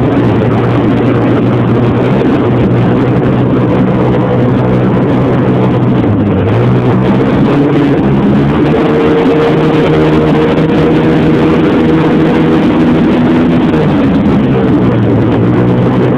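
Snowmobile engine running steadily at speed, its pitch dipping briefly about six seconds in before picking back up.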